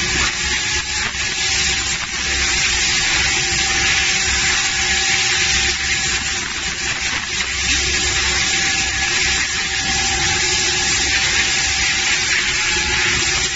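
Two-spindle CNC router cutting acrylic sheet: the spindles run with steady whining tones over a loud, even hiss.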